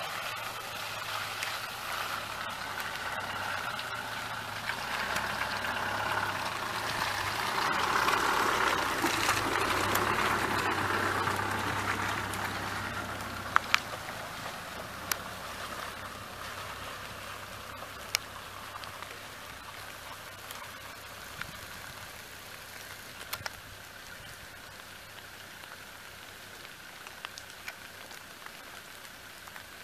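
Range Rover Classic 4x4 driving slowly along a wet, muddy track: a steady low engine hum with tyres swishing through mud and water. It grows loudest about ten seconds in as it passes, then fades as it drives away. A few sharp clicks follow in the second half.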